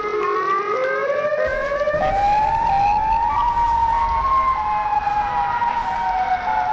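Outdoor tornado warning sirens wailing, several tones layered together. The pitch rises over the first three seconds or so, then slowly falls. A low rumble joins about one and a half seconds in.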